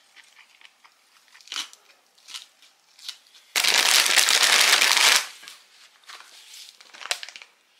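Plastic snack bag of Rold Gold pretzel thins crinkling loudly for about a second and a half as it is handled, after a few light clicks and taps.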